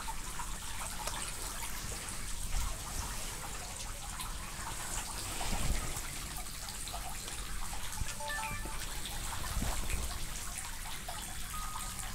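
Running water from a fountain, trickling and splashing steadily, with a few soft low bumps.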